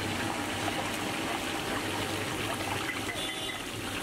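Thin potato slices deep-frying in a large kadai of hot oil: a steady bubbling sizzle with fine crackling.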